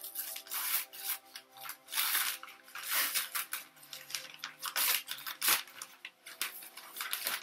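Plastic wrapping crinkling and rustling in irregular bursts as plant cuttings are unwrapped, over a faint steady hum of tree-cutting machinery.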